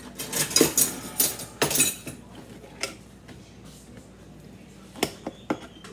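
Metal cutlery and china dishes clinking and clattering. A quick run of clinks comes in the first two seconds, then a few single knocks.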